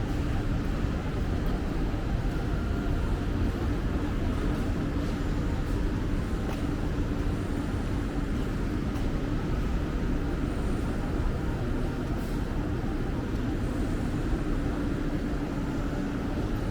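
Busy city street ambience: a steady low rumble of traffic and engines with a faint constant hum, and no distinct single event.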